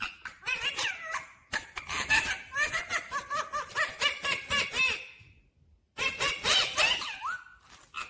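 Rose-ringed parakeet chattering: a quick run of short warbling chirps, about five a second, that breaks off briefly about five seconds in and then starts again.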